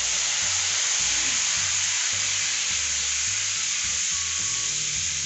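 Butter, garlic and soy sauce sizzling in a nonstick frying pan: a loud, even hiss of the bubbling sauce.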